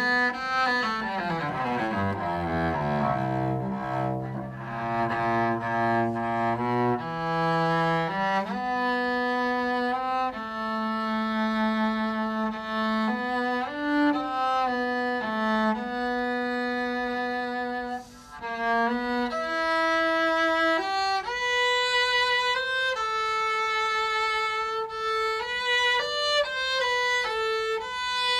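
Solo cello bowed with a CodaBow carbon-fibre bow: quick runs in the low register at first, then a slow melody of held notes climbing into the upper register, with a short break about eighteen seconds in.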